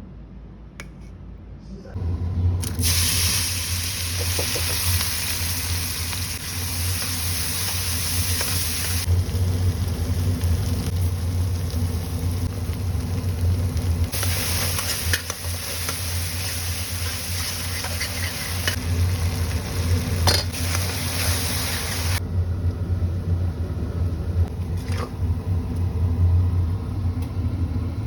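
Stovetop cooking: loud hissing over a steady low hum, with the hiss coming in two long stretches, about two to nine seconds in and again from about fourteen to twenty-two seconds.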